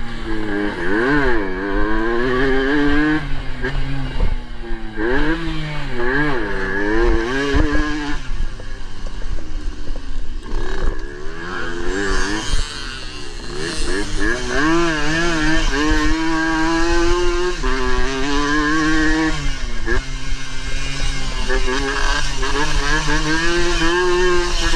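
Suzuki AX100's two-stroke single-cylinder engine under hard riding, its revs climbing and dropping again and again as the rider accelerates, shifts and backs off through the turns, with longer held high-rev pulls in the second half.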